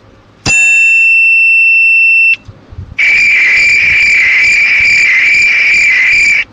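Two electronic sound effects in turn. First a steady, clean beep lasting about two seconds, stopping abruptly. After a short pause comes a harsher, rough-edged buzzer tone held for about three and a half seconds, like an alarm buzzer.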